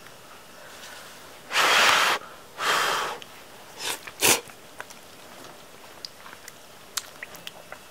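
Person slurping ramen noodles: two long, loud, airy slurps, then two short ones about four seconds in, followed by a few small clicks.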